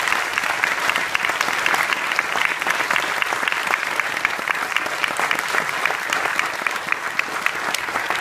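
A seated audience applauding, many hands clapping at a steady, dense level.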